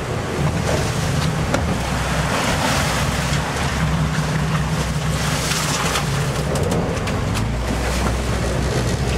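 Sport-fishing boat's engines running steadily under loud rushing and splashing of churned water at the stern, with wind buffeting the microphone.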